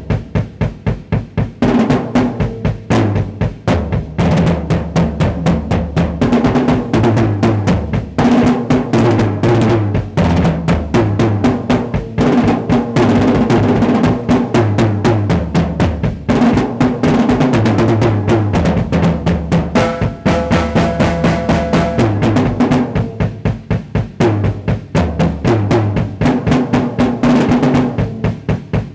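Drum solo on an acoustic drum kit: fast, continuous rolls and fills moving around the snare and toms, with bass drum underneath, the drum pitches stepping up and down as the sticks move across the kit.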